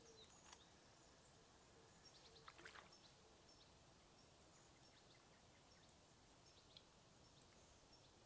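Near silence: faint outdoor ambience with scattered short, high chirps of small birds and a few soft clicks about two and a half seconds in.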